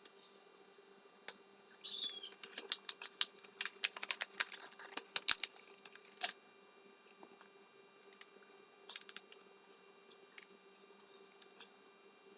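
Sharp plastic clicks and taps in a quick irregular flurry, with a short scrape about two seconds in, as laptop parts are handled and fitted back together; a few faint clicks follow later.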